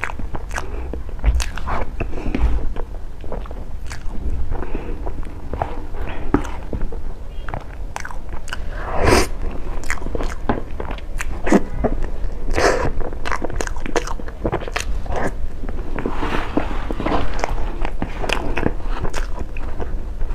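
A person biting and chewing cake close to the microphone, with wet mouth smacks and clicks at an irregular pace, and a few louder bites partway through.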